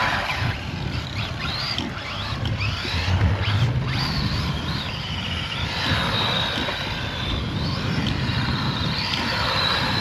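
Electric drive motor of a ZD Racing RX12 radio-controlled rally car whining, its pitch rising and falling again and again as the throttle is worked, over a low rumble.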